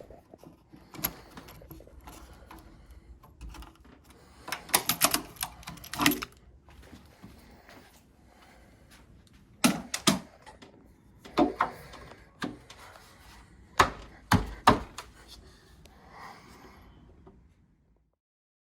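Irregular sharp clicks and knocks of metal door-lock hardware being handled and worked, in several quick clusters, the busiest about five seconds in. The sound stops suddenly near the end.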